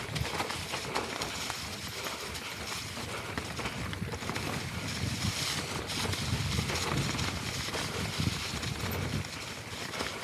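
Mountain bike riding fast down a rocky, leaf-covered trail: tyres crunching over loose stones and dry leaves, with frequent clicks and rattles from the bike, under a low rush of wind on the camera's microphone.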